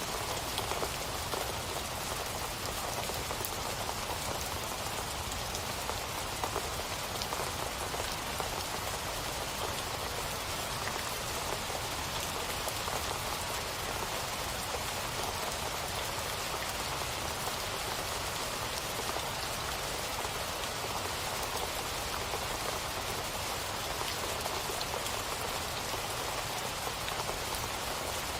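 Steady rainfall: an even hiss of rain with many small drops pattering on a surface.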